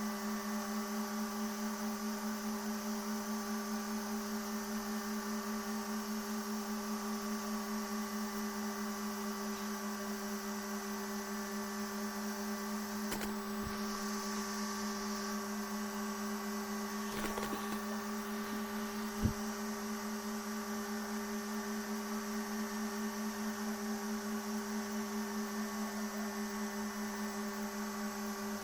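Homemade 3D printer running with a steady electrical hum: a strong low tone with fainter higher tones above it. There is a sharp click about nineteen seconds in.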